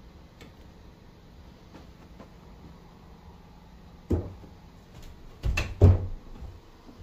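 A sharp thump about four seconds in, then a quick cluster of two or three louder knocks about a second and a half later.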